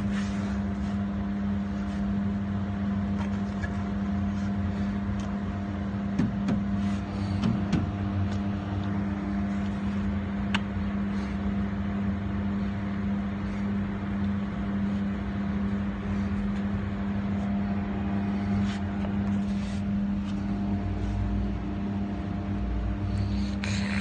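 A steady mechanical hum with a constant pitch, with a few light clicks and knocks.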